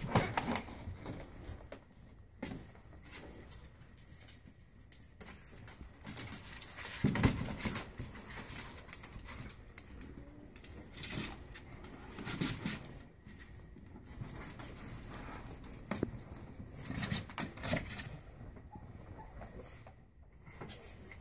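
Pug puppies scrabbling and shuffling about in a plastic kiddie pool lined with towels: irregular scratching and clicking of small claws on the plastic, with cloth rustling and the odd soft bump.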